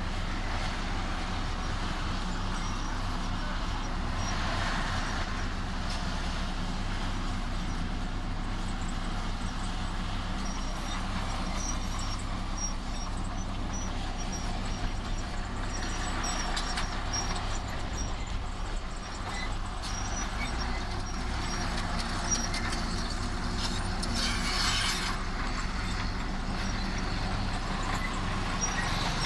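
Diesel engine of heavy earthmoving machinery running steadily, with a few short stretches of hiss over it.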